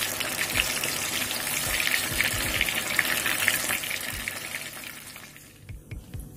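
Bread cutlets deep-frying in hot oil: a dense sizzling crackle of many small pops, which fades away near the end.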